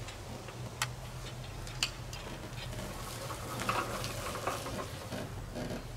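Light clinks and rattles, with a couple of sharp clicks, from a barrel grill mounted on a mobility scooter as it is moved, over a faint steady low hum.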